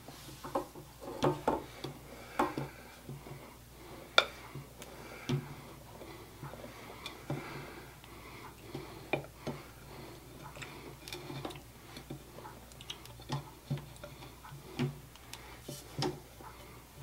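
Irregular light taps and clicks at a stand mixer's stainless steel bowl as flour is tipped in from a mixing bowl and batter is pulled off the flat paddle by hand, with the mixer switched off.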